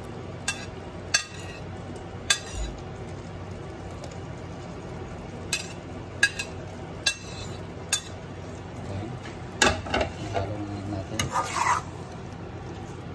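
A spatula scraping and clinking against a plate and a nonstick pot as broccoli is pushed in and stirred into the beef and sauce. Sharp knocks come every second or so, with a longer stretch of scraping and stirring near the end, over a steady low hiss.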